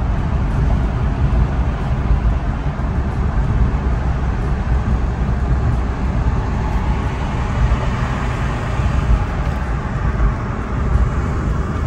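A manual car being driven, its engine and tyre noise a steady low rumble heard inside the cabin.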